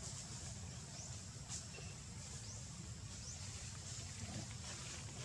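Forest ambience: a steady low rumble under a faint high hiss, with brief high chirps about once a second.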